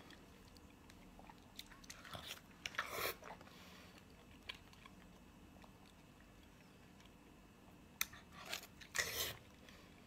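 Close-up eating sounds: biting and tearing into a large piece of boiled white meat, then chewing. Louder bites come in two bunches, about two to three seconds in and again near the end, with small wet clicks between.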